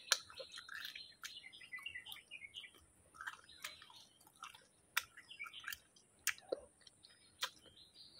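Close-up mouth chewing on fish. Irregular sharp crunching clicks come from small fish bones being chewed up.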